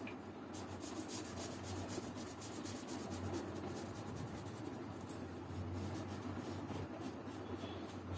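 Felt-tip sketch pen rubbing on paper as it colours in a shape, a steady scratchy sound of quick repeated strokes.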